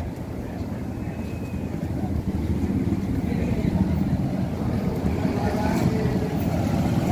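Motorcycle engine running with a low rumble, slowly getting louder as it comes closer.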